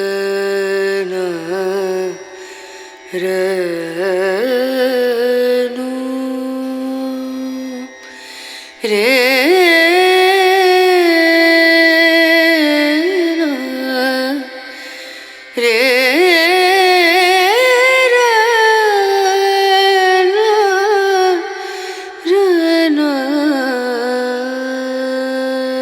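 Music with a solo sung melody, its pitch bending and wavering in ornaments, played back through a Klipsch R-52C center-channel speaker for a sound test.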